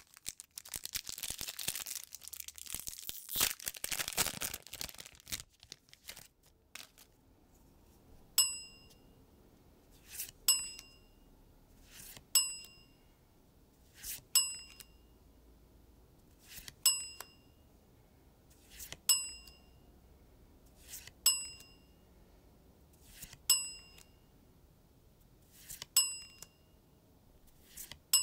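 Foil trading-card booster wrapper crinkling and tearing open for about the first six seconds. Then cards are slid over one another, and each is followed by a short, bright, bell-like ding: about ten dings, roughly two seconds apart.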